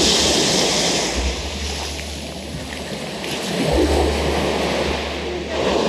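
Ocean surf washing up on a beach, swelling and easing, loudest near the start and again about four seconds in. Wind rumbles on the microphone in gusts.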